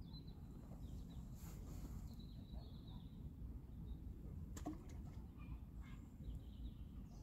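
Faint riverside ambience: a steady low rumble with small birds chirping a few times, and one sharp click about four and a half seconds in.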